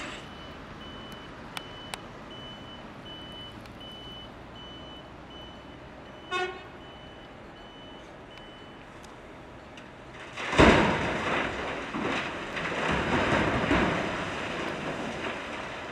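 A reversing alarm beeps steadily for the first eight or nine seconds, with a short horn toot about six seconds in. About ten seconds in, blasted rock crashes out of the Volvo L260H wheel loader's side dump bucket into a steel tipper trailer, loud at first and rumbling on for about five seconds.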